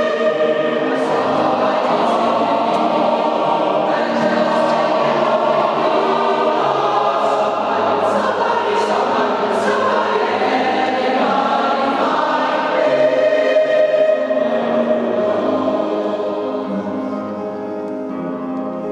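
Mixed choir of women and men singing together in sustained chords, with sharp s-sounds of the words now and then. The singing grows quieter over the last few seconds.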